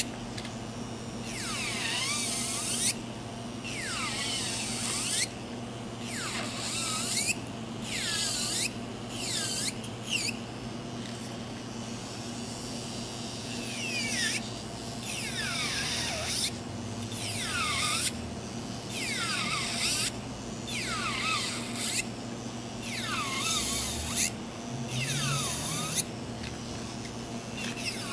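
Electric nail drill (e-file) grinding gel polish off a fingernail: the motor hums steadily, and each time the bit is pressed to the nail its whine dips in pitch and rises again with a gritty sanding hiss, repeated every second or two.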